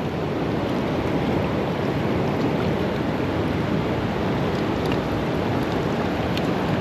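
Steady rush of a fast-flowing creek's current, an even hiss with no change in level.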